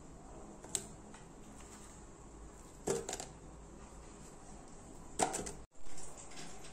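Faint knocks and clatters of onion pieces and a spoon against a stainless steel mixer jar, a few short sharp ones with a cluster about three seconds in and another about five seconds in, over low room noise. The sound drops out completely for an instant near the end.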